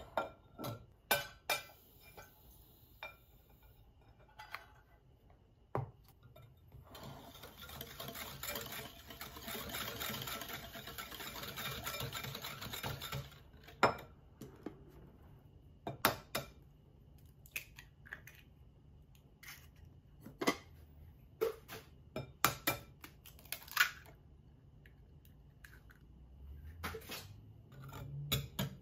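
A wire whisk beating melted butter in a glass mixing bowl, its wires clinking and tapping against the glass. A steady stretch of fast whisking runs from about a quarter of the way in to near the middle, with scattered single taps before and after.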